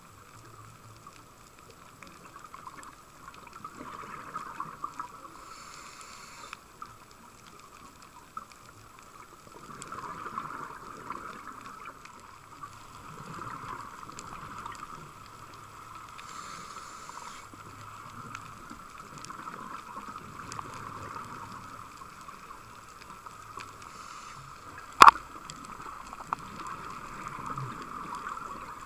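Muffled underwater sound through a camera housing: a scuba diver's regulator breathing, with a short hiss roughly every ten seconds and gurgling in between. Scattered clicks run throughout, and one sharp knock comes near the end.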